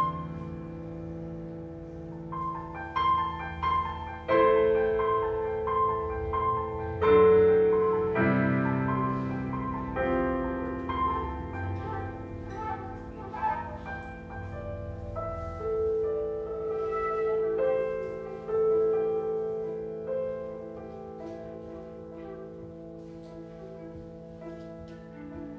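Improvised piano playing: single notes and chords struck and left to ring, with a high note repeated over and over in the first few seconds, then slower held notes, thinning out and quieter near the end.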